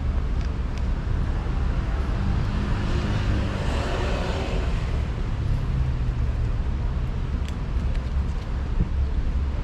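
Urban street traffic with a steady low rumble. A car passes by, swelling and fading about four seconds in.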